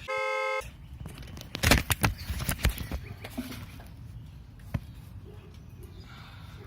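A half-second electronic beep-like tone, then a quick run of loud metallic clanks and knocks from lawnmower engine parts being handled. A single click comes a couple of seconds later.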